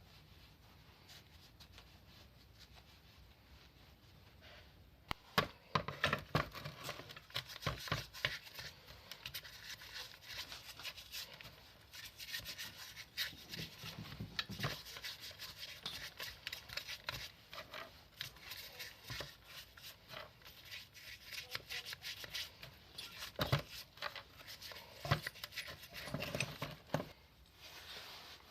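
Irregular rubbing and scraping strokes by hand with scattered sharp clicks, consistent with rust and old paint being cleaned off the parts of an old hand-cranked grinder. It starts about five seconds in and stops shortly before the end.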